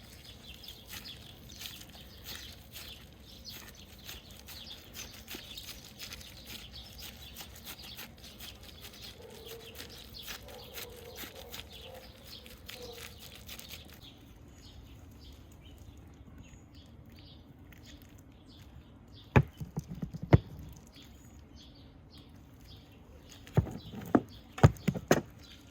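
Birds chirping steadily in the background, thinning out about halfway through. Two sharp knocks come about two-thirds of the way in, then a quick cluster of four or five more near the end.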